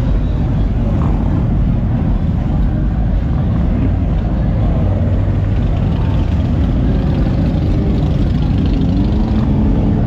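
Motorcycles riding slowly past in a continuous stream, mostly big cruiser bikes, making a steady deep engine rumble. Near the end one engine's pitch rises and falls as it is revved.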